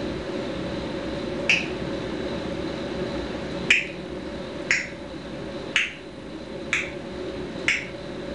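A series of six short, sharp clicks, the last five about a second apart, over a steady hum.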